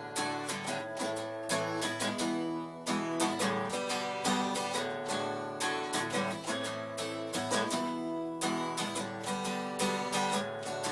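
Acoustic guitar strummed in a steady rhythm, playing a simple song.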